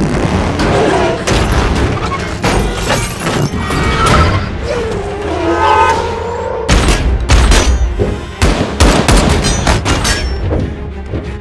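Action-film soundtrack: a music score under repeated volleys of gunfire and heavy booms. Sharp impacts come in clusters, and near the end bullets are punching through sheet metal.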